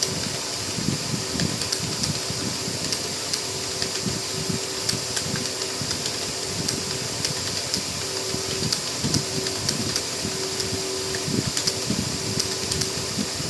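Computer keyboard keys clicking in quick, irregular touch typing, several keystrokes a second, over a steady fan-like hum.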